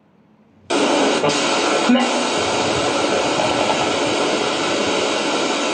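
Spirit box sweeping through radio frequencies: loud radio static that switches on abruptly under a second in, with a couple of brief breaks in the hiss as it jumps between stations.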